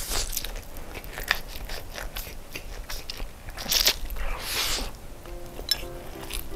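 Close-miked eating of stir-fried Samyang yakisoba instant noodles: wet chewing and mouth smacks, with two loud slurps as mouthfuls of noodles are drawn in about halfway through.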